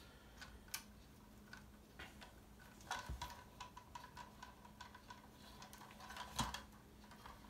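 Faint, scattered clicks and ticks of a steel AR-15 magazine spring and its plastic base parts being handled and fitted together by hand, a sharper click about three seconds in and another near the end.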